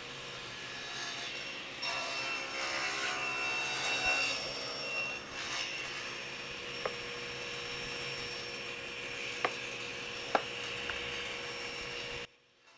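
SawStop table saw running with dust collection on; the blade cuts through a hardwood plank on a crosscut sled from about two to five seconds in. A few sharp clicks follow as the sled's pivoting stop and hold-down clamp are worked. The running sound stops abruptly near the end.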